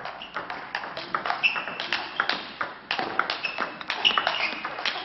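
Table tennis ball clicking rapidly off bat and table in a fast rally, several hits a second, some of them leaving a short high-pitched ping.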